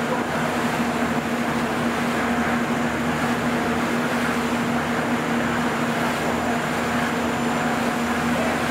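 Tour boat's engine running at a steady pitch, a constant hum over an even rush of noise.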